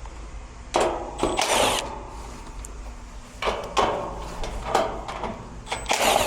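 Several short bursts of tool and handling noise from work on an air-conditioner condensing unit, each about half a second long, over a steady low hum.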